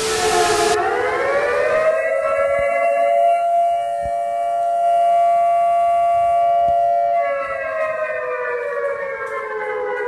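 A siren winds up in pitch over about two seconds, holds a steady chord of tones, then winds down near the end. A burst of TV-static hiss cuts off in the first second.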